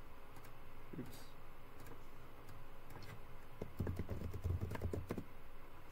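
Typing on a computer keyboard with mouse clicks. Scattered single clicks give way to a quick run of keystrokes in the second half.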